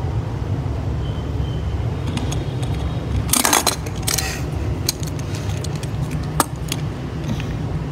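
A small plastic toy being handled, with a burst of clicks and rattles about three seconds in and a few single clicks after, over a steady low hum.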